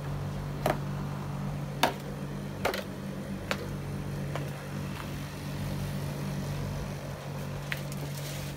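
Footsteps in sandals on wooden steps and a stone garden path, a sharp tap roughly every second, over a steady low hum.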